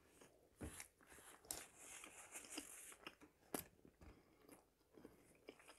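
Faint, close-miked chewing and mouth smacks of a person eating, with a few sharp clicks.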